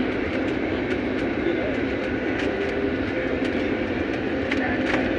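An IndiGo airliner during landing: a steady, even rumble of aircraft noise with a constant hum running through it.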